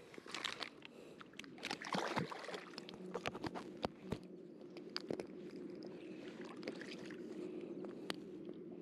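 Fishing gear being handled: a run of sharp clicks, knocks and scrapes for the first few seconds, easing into occasional clicks over a steady low hum.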